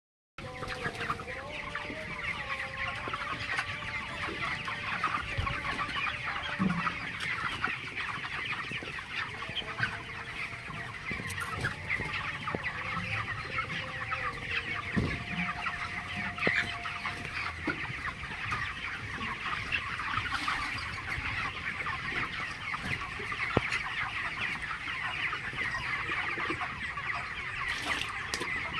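A large flock of broiler chickens chattering and clucking continuously, many short calls overlapping into a steady din.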